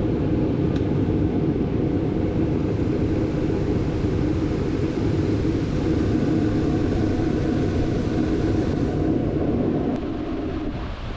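Propane gas forge burners firing a furnace, a steady rushing noise that drops a little about ten seconds in.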